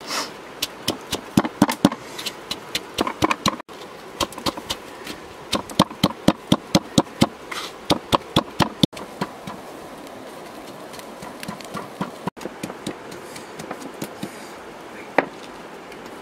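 Stone pestle pounding salt, garlic and red chillies in a small bowl mortar, sharp knocks at about three to four a second. After about nine seconds the knocks thin out to a few scattered, lighter ones, with one louder knock near the end.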